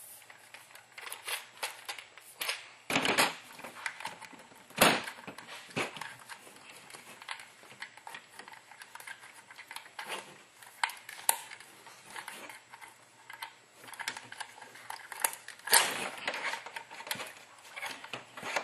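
Parts of a CYMA CM-032 M14 airsoft rifle clicking and knocking as they are handled and fitted together: irregular light clicks, with sharper knocks about three seconds in, about five seconds in and near the end.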